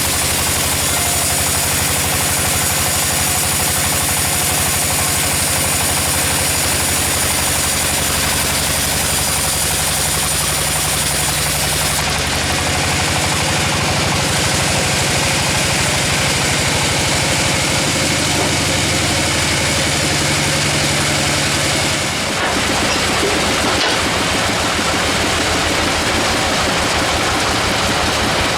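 An engine-driven sawmill saw running steadily. A high hiss cuts out sharply about 12 seconds in, and the sound changes abruptly again about 22 seconds in.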